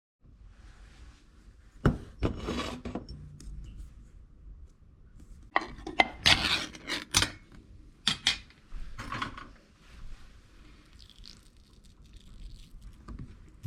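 Clinking and scraping of a utensil against a can and dish as canned cat food is dished out, in several short bouts with sharp clicks.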